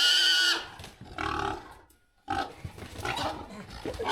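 A pig squealing loudly: a long high squeal breaks off about half a second in, a shorter one follows after a second, and rougher, broken squealing starts near the middle. These are the screams of a hog being caught and restrained for slaughter.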